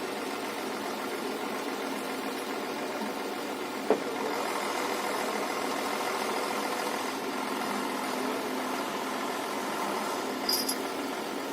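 Diesel engine of heavy construction machinery running steadily, with a sharp knock about four seconds in, after which it runs a little louder, and a short high-pitched sound near the end.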